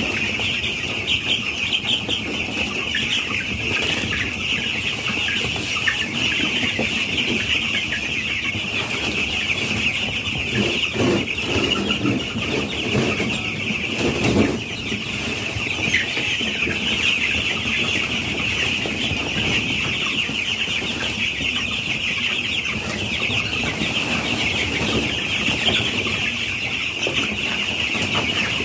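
A crowd of broiler chicks peeping constantly in a brooder, a dense high chorus of cheeps. There are some louder rustles and knocks about halfway through.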